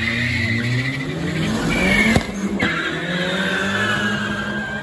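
Two cars launching off a drag-strip start line and accelerating hard away, engines revving with tyre squeal.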